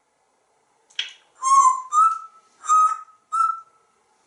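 African grey parrot whistling: a short chirp, then four whistled notes in quick succession, the first lower and the other three a little higher.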